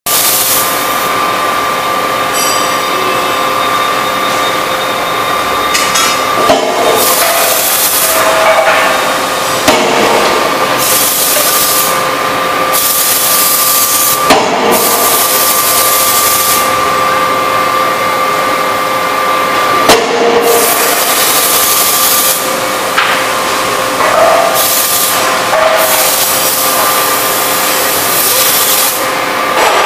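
Die forging hammer striking a red-hot workpiece with several heavy blows a few seconds apart. Under the blows runs a steady machine hum with a high tone, broken by repeated loud bursts of hissing.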